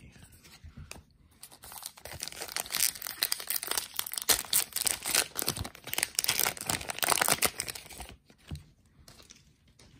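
A sealed baseball card pack's wrapper crinkling and being torn open by hand. It makes a dense crackle from about two seconds in until about eight seconds, then quietens to light handling.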